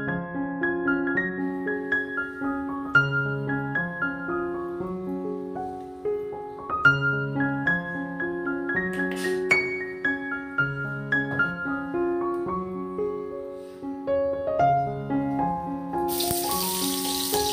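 Gentle background piano music, a repeating pattern of notes. Near the end, a sudden loud sizzle starts as chopped onion drops into hot oil in a kadai.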